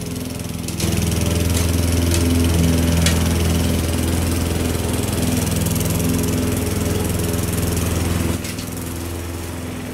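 Petrol lawn mower engine running steadily. It gets louder about a second in and drops back to a lower level near the end.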